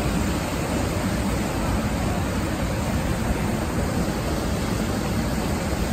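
Water rushing over a small concrete dam spillway: a steady, unbroken rush of falling water.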